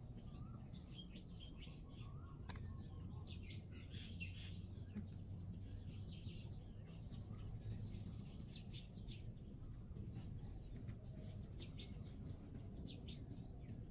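Birds chirping faintly in short runs of quick high chirps every few seconds, over a steady low background hum.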